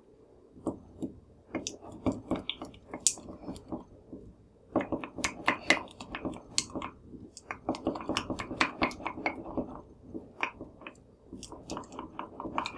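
Spatula stirring melted white chocolate in a small glass bowl: a fast run of scrapes and light taps against the glass, busiest in the middle.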